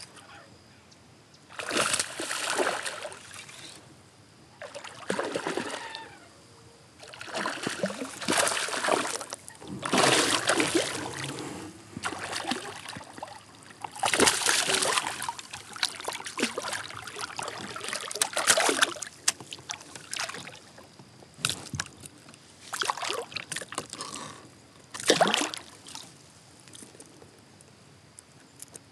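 A hooked smallmouth bass thrashing and splashing at the surface beside a kayak as it is reeled in. The splashing comes in repeated bursts a second or two long, then shorter, sharper splashes near the end.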